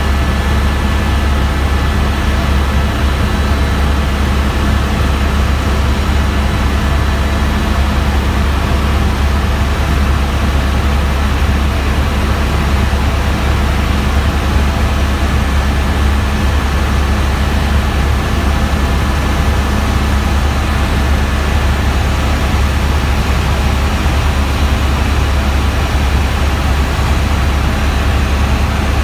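Helicopter in cruising flight heard from inside the cabin: a loud, steady drone of rotor and engine with a deep low hum and a thin steady tone above it.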